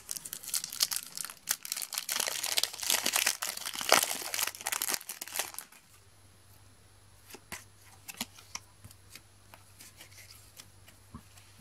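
Foil wrapper of a Match Attax trading-card packet crinkling and tearing open by hand for about six seconds. Then it goes much quieter, with a few faint clicks as the cards are handled.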